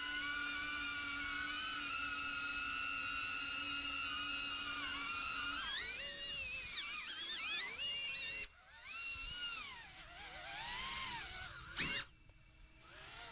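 DJI Avata FPV drone's propellers whining: a steady high hum for about five seconds, then the pitch swinging up and down as the throttle changes. The whine cuts out briefly twice, near the middle and near the end.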